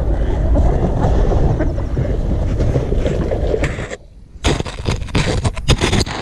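Wind buffeting the microphone, a loud low rumbling noise that cuts out about four seconds in. It is followed by a quick run of sharp knocks and clicks.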